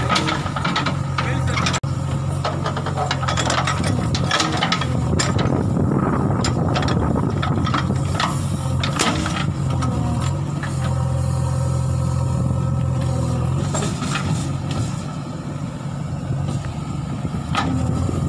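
JCB backhoe loader's diesel engine running steadily under load, with repeated knocks and clatter from the machine working soil and rock.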